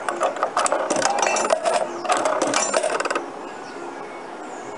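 A coin pushed into a coin-operated kiddie ride's coin mechanism, with a quick run of metallic clicks and rattles as it drops through. The clicking stops after about three seconds.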